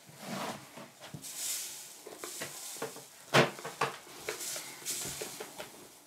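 Decorative sand being poured through a funnel into a plastic bottle: a soft hiss with scattered clicks and taps on the plastic, and one sharp knock about three and a half seconds in.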